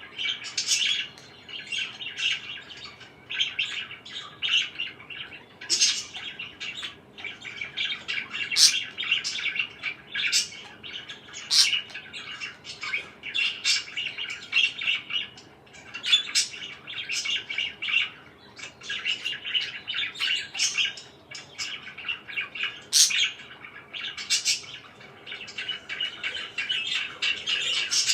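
Pet parakeets chattering and chirping without a break, with frequent sharp high chirps over a busy warbling chatter.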